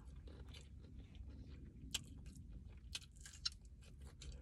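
Faint close-up chewing of fried chicken wings, with a few crisp ticks from the bites about two and three seconds in.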